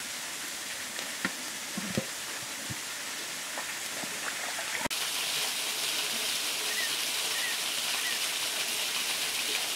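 An aluminium lid is set onto a wok with a couple of light knocks, over a steady hiss. The hiss gets a little louder and brighter about halfway through.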